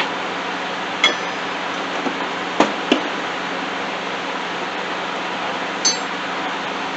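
Small steel mounting hardware (bolts, washers and nuts) clinking as it is handled: four sharp clinks, two of them ringing briefly, over a steady background hiss.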